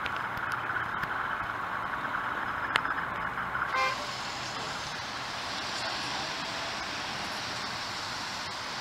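Steady road-traffic noise, a continuous wash of passing vehicles. About four seconds in it turns brighter and hissier, and there is one sharp click a little before that.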